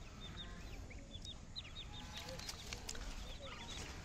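A flock of young chicks cheeping: a steady scatter of short, high peeps, several a second, overlapping one another.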